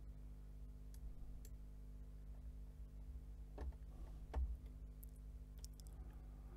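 Faint computer mouse clicks and scroll-wheel ticks, a handful of separate clicks, the loudest about four and a half seconds in, over a steady low hum.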